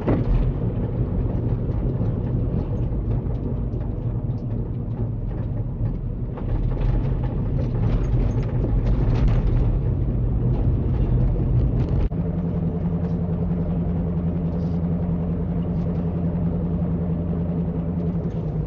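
Engine and tyre noise inside a moving car's cabin, a steady low hum, changing abruptly about twelve seconds in to a steadier drone.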